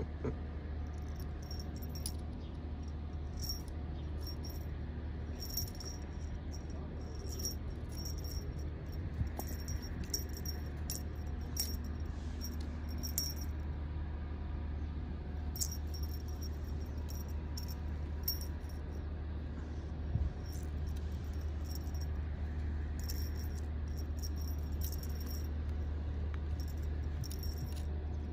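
A kitten's string toy jingling and rattling in short, irregular bursts as the kitten bats and bites at it, over a steady low hum.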